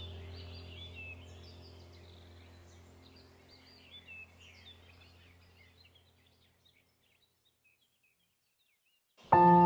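Background ambient music with birdsong chirping over a low steady drone, fading out over about seven seconds to silence. Near the end a new ambient track starts abruptly with a held, bell-like chord.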